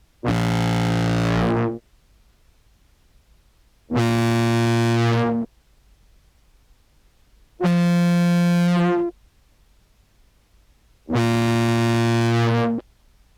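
Contrabass clarinet samples played through an envelope filter into a fuzz pedal: four separate sustained, distorted notes of about a second and a half each, with short pauses between. The envelope filter takes the edge off each note's attack, so no key clicks come through the fuzz.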